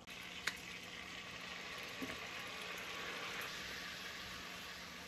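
Butter-and-seasoning sauce sizzling in a stainless steel saucepan as fresh lemon juice goes in and is stirred with a spatula; a sharp knock about half a second in.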